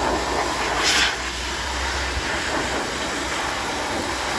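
High-velocity dog grooming dryer blowing air through its hose into a Samoyed puppy's coat: a steady rush of air, with a brief louder hiss about a second in.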